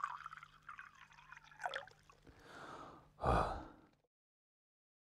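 Channel-logo intro sound effects: a string of soft, fluttery sounds over a faint low hum, then a louder burst of noise about three seconds in that dies away within a second.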